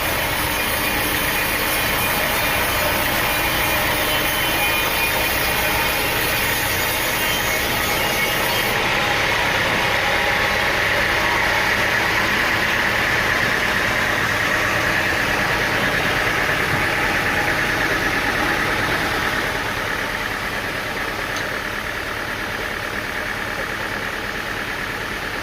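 Engine-driven sawmill machinery running steadily. From about nine seconds in, a louder, higher whine sits over it; it fades off about twenty seconds in, and the overall level drops.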